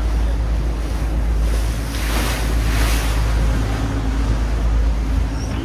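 Water taxi motorboat underway on a canal: a steady low engine rumble under wind buffeting the microphone and water rushing past the hull. About two seconds in, a louder rush of hiss lasts for about a second.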